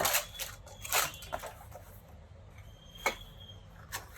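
Handling noises from unpacking a soldering station's accessories: a few short clicks and rustles of packaging and small parts, the loudest at the start, about a second in and about three seconds in.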